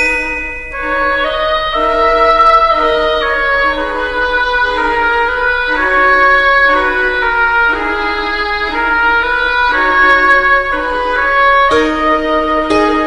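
Instrumental background music: a slow melody of held notes, with a louder passage starting near the end.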